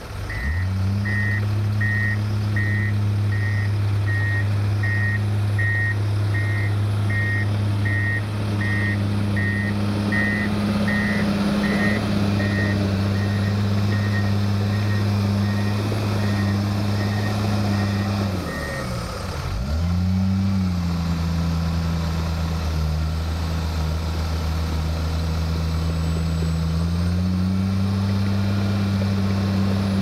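Komatsu D51EX crawler dozer's diesel engine running steadily as it backs up, its reverse alarm beeping at a steady pace and growing fainter. About two-thirds of the way through the beeping stops and the engine note dips and drops as the dozer changes direction; near the end the engine pitch rises as it pushes forward under load with a blade of topsoil.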